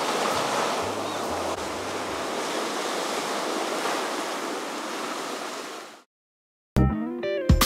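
Surf breaking and washing up a sandy beach, a steady rush that fades out about six seconds in. After a short silence, guitar music starts near the end.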